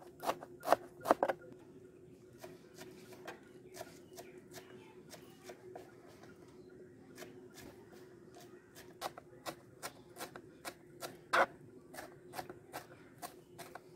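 Kitchen knife chopping fresh coriander on a plastic cutting board: irregular taps of the blade hitting the board, sparse in the middle and quicker again from about two-thirds of the way in, with one louder chop near the end.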